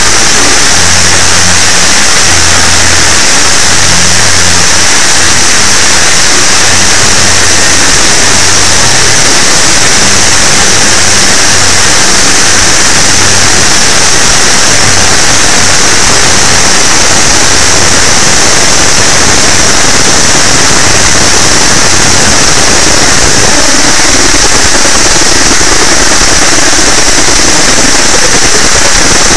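Deliberately overdriven jumpscare sound effect: a continuous harsh wall of distorted noise, clipped flat at full loudness, with a steady hiss band high up and choppy low tones stuttering underneath during the first half.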